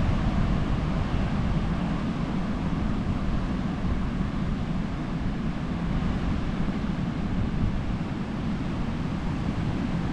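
Steady ocean surf with wind rumbling on the microphone.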